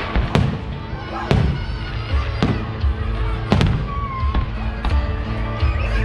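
Fireworks show: aerial shells bursting in sharp bangs, about one a second, over music playing.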